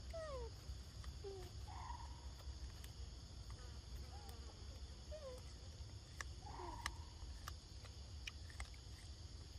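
Steady high insect drone of a forest chorus, with short chirps sliding down in pitch now and then, a few brief squawk-like calls and faint clicks.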